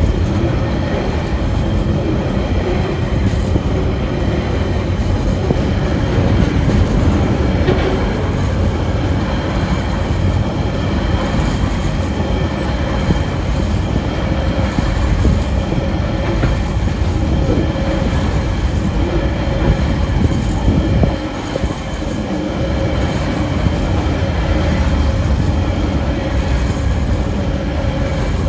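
Freight train's container wagons rolling past at about 30 km/h: a steady, loud rumble of steel wheels on rail with some clickety-clack, briefly quieter about 21 seconds in.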